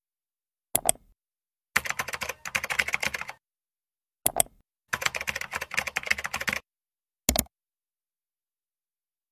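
Computer keyboard typing in two quick runs of about a second and a half each, each preceded by a single mouse click, with a third mouse click after the second run.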